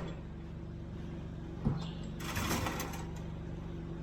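An engine running steadily at idle, with a sharp clunk about one and a half seconds in and a brief rush of noise a little later.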